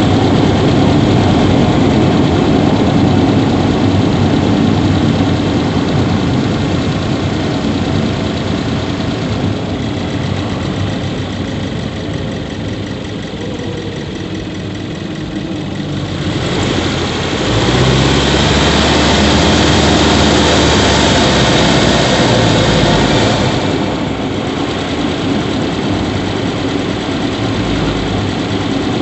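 Subaru Levorg 1.6GT-S's 1.6-litre turbocharged flat-four running steadily, heard in the engine bay while the owner checks it for an intermittent squeak ("kyuri") that he says grows louder as it warms. About seventeen seconds in, a louder, fuller rushing noise comes in for about six seconds and then falls back.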